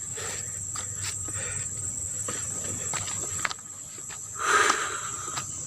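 Steady high-pitched insect chorus trilling without a break in mountain forest. A short hiss rises and falls about four and a half seconds in.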